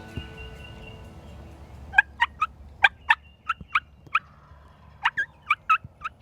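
Turkey calling: two runs of sharp notes, each note falling in pitch, about a dozen in all, starting about two seconds in.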